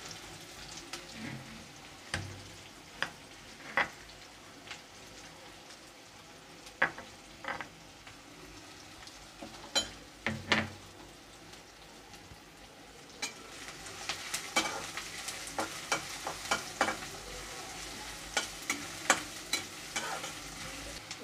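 Chopped onions frying in hot oil in a metal kadhai, with a steady sizzle and a few sharp knocks in the first half. From about halfway on, a metal spatula stirs and scrapes against the pan with many quick clicks.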